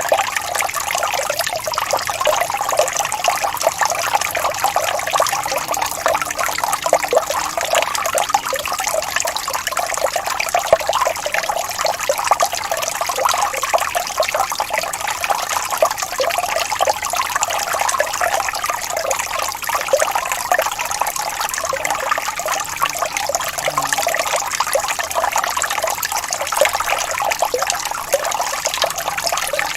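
Falling water trickling and splashing steadily, a continuous patter of small splashes with no change.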